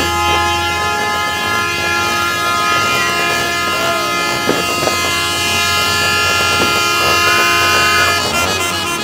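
Vehicle horn held down in one long, loud, unbroken blare of several tones at once. A few short sliding whistles or cries rise and fall over it.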